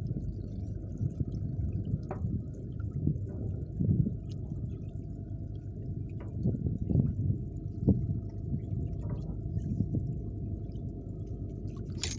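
Water sloshing and gurgling, heard heavily muffled, with soft irregular surges about once a second.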